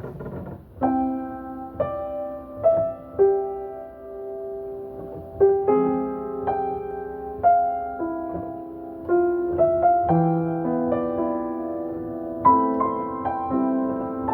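Solo piano playing a slow, gentle arrangement of a Mandarin pop ballad, single notes and chords struck and left to ring, starting about a second in.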